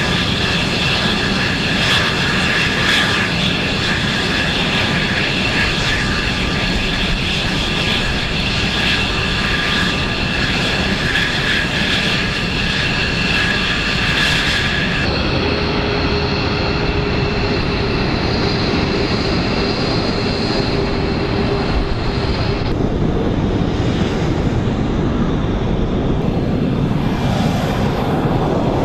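Fighter jet engine running at taxi power: a steady rush with several high whining tones, from a single-engine F-16 taxiing. About halfway through the sound changes abruptly and the high whine drops back, and after about two-thirds of the way the whine fades out, leaving the broad rush.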